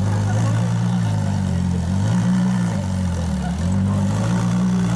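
Ferrari LaFerrari's V12 engine idling, its pitch wavering slightly a couple of times.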